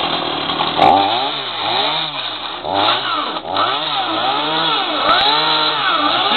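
Chainsaw cutting into the plastic casing of a CD player. Its motor pitch rises and falls in a regular wavering, about once every 0.7 seconds, as the bar is worked into the casing. A sharp crack comes about a second in.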